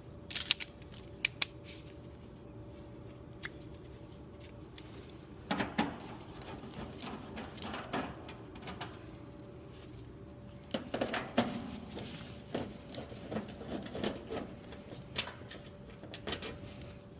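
Scattered sharp clicks and metallic rattling as the screws of the heat pump's access panel are worked loose with a 5/16-inch nut driver, with two busier stretches of rattling, one about five seconds in and a longer one in the second half.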